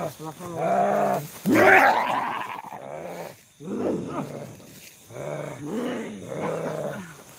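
A man's voice growling and groaning in a string of short, animal-like cries, each under a second, with one louder, higher cry about one and a half seconds in.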